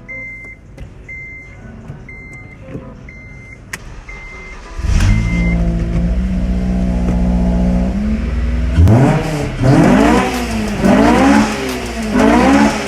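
A car's warning chime beeps about six times. About five seconds in, the engine starts and runs steadily, then it is revved four times, roughly once a second, each rev rising and falling in pitch.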